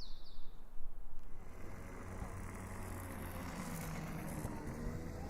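A motor vehicle's engine running, coming up about a second and a half in and holding steady, with a low hum.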